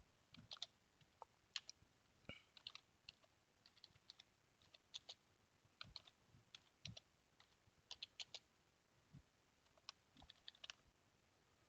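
Faint typing on a computer keyboard: irregular single keystrokes and short runs of clicks.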